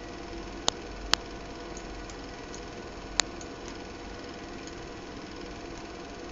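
Steady mechanical hum with a few faint steady tones, broken by three sharp clicks, two close together about a second in and one about three seconds in, like computer mouse or key clicks as a script is run.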